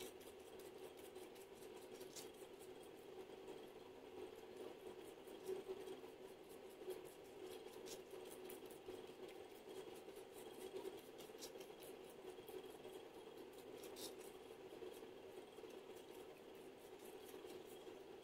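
Near silence: faint pattering of gloved fingertips tapping on serum-covered facial skin in a tecleo massage, with a few sharper faint clicks over a steady low room hum.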